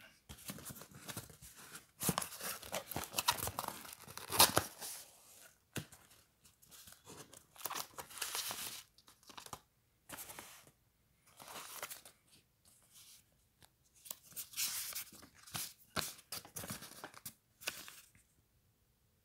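Cardboard shipping box being torn open by hand, then paper and plastic wrapping rustled and crinkled, in irregular bursts that are loudest about four seconds in and stop near the end.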